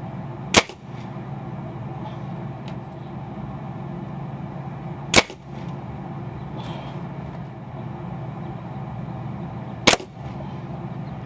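Crosman Phantom 1000X .177 break-barrel air rifle firing three shots, each a sharp crack about four and a half seconds apart, over a steady low hum.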